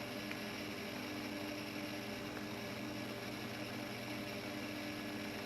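Homemade Tesla coil humming steadily: an even buzz with several overtones, its pitch set by the coil's interrupter.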